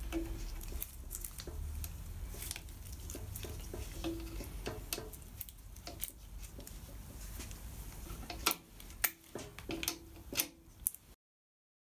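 Pliers clicking and scraping on a steel cotter pin at the motorcycle frame's side-stand pivot as the pin is worked out, over a low steady hum; a few sharper metal clicks come near the end before the sound cuts off suddenly.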